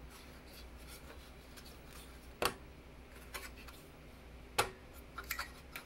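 Sharp plastic clicks of a small metal-framed speaker being pressed into its mounting clips in a Macintosh Performa 475's plastic case: two clicks about two seconds apart, then a few lighter ticks near the end.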